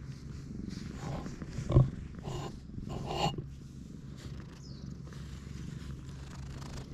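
Stray cat purring steadily while its head is stroked. Rustling of the hand and fur comes about a second in, with a sharp tap, the loudest sound, just before two seconds.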